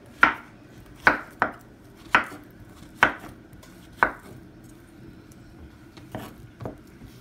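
Kitchen knife slicing peeled plantains into rounds on a wooden cutting board, each cut ending in a sharp knock of the blade on the board. About eight cuts at an uneven pace, with a pause of about two seconds midway.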